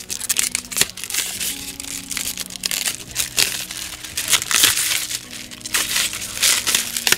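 Thin protective plastic film being peeled off a clear plastic protector case, crinkling and crackling unevenly, loudest about four and a half seconds in.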